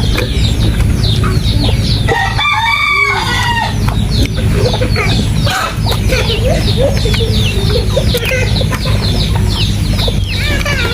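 Chickens clucking and chirping, with a rooster crowing once about two seconds in, over a steady low rumble.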